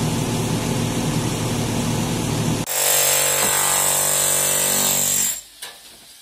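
Power tools running loud during masonry work: one machine runs until it cuts off suddenly about two and a half seconds in, then a second machine with a steady whine runs until about five seconds in. Then it is much quieter, with a few light knocks.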